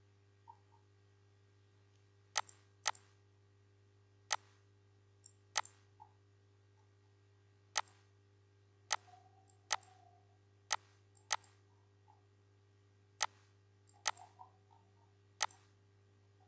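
Computer mouse button clicking: about a dozen sharp single clicks at uneven intervals, over a faint steady electrical hum.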